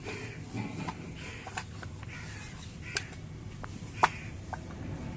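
Handling noise from a small plastic precision screwdriver-bit case and its cardboard box: rustling and scraping as the case slides out, with scattered light clicks and taps of hard plastic and one sharper click about four seconds in.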